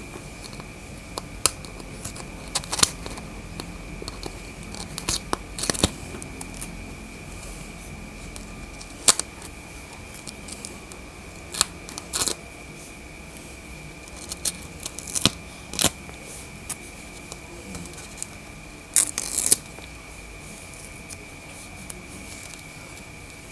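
Irregular sharp clicks, snaps and short cutting or tearing sounds, some in quick clusters, from unpacking and handling a mini air conditioner's packaging and plastic parts. A faint steady high whine runs underneath.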